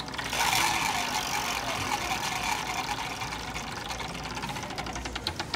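IKEA LUSTIGT wooden spinning number wheel turning, its orange pointer clicking over the wooden pegs: a fast clatter that slows into separate clicks, spaced further and further apart, as the wheel loses speed.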